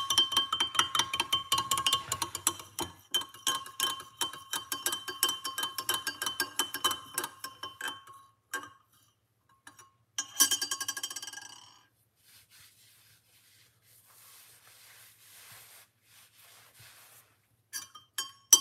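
A metal spoon stirring honey into hot water in a Pyrex glass measuring jug, clinking rapidly against the glass, which rings. The stirring runs for about eight seconds, stops, comes back for a second or so around ten seconds in, and a few more clinks come near the end.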